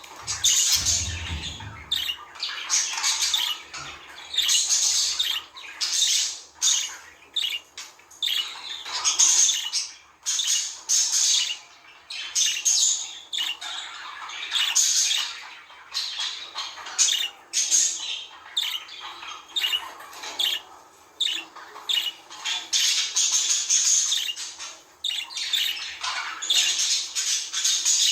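Budgerigars chattering and squawking in fast, warbling bursts of a second or two with short pauses between them. A soft low thump comes about a second in.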